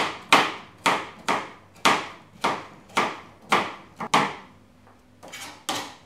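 Kitchen knife chopping cucumber on a plastic cutting board: sharp, steady knife strikes about two a second, breaking off about four seconds in, with a few softer strokes after a short pause near the end.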